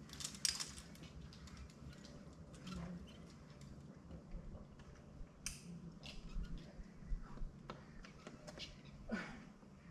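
Climbing gear clinking and tapping: carabiners and quickdraws on a climber's harness, with scattered small scrapes and knocks. A short downward-gliding sound comes near the end.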